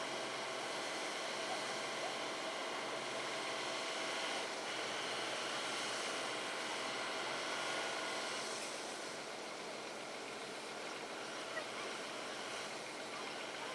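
A heavy engine running steadily under an even hiss, with a few steady droning tones and no change in speed.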